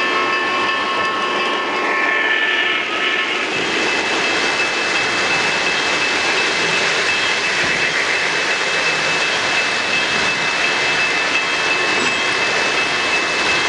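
O-scale model trains running past close by: a steady rushing rumble of wheels on the track and electric motors, with a faint steady high whine.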